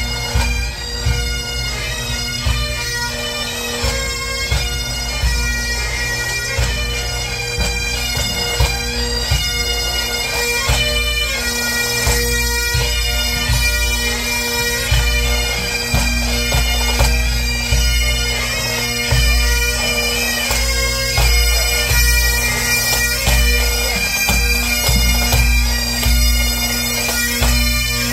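Pipe band of Highland bagpipes playing a marching tune over their steady drones, with a low rumble underneath.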